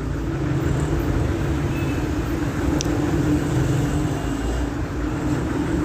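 Steady low rumble of background road traffic with a continuous engine hum.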